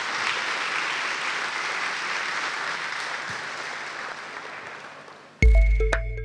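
Audience applauding, dying away over about five seconds, then cut off abruptly near the end by loud electronic music with a heavy bass and beat.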